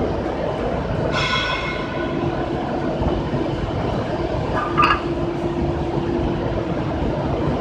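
Sawdust charcoal making machine running with a steady industrial drone and hum. About a second in there is a high squeal lasting under a second, and a brief sharp squeak comes near five seconds.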